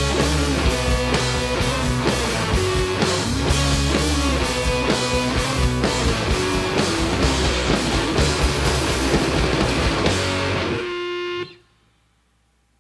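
Live rock band playing: electric guitar, electric bass and drum kit with a steady beat. About eleven seconds in the band stops on a short held chord that cuts off sharply, leaving near silence.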